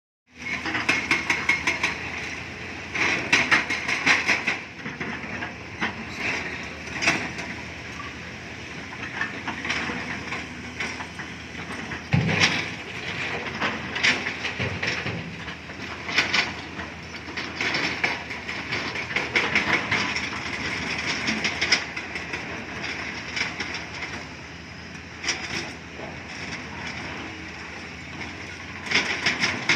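Excavator at work: a diesel engine running steadily under repeated spells of rapid metallic clanking and rattling, with a few heavier knocks.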